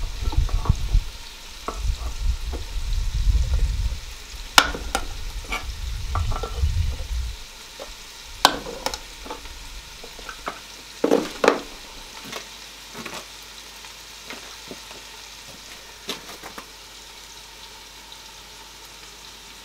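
An old rusty can opener punching and working a bigger hole in a tin of coconut cream: scattered sharp metallic clicks and knocks, with low thumps of the tin against the table over the first seven seconds or so. Underneath, a steady faint sizzle of food cooking in the camp oven on the wood stove.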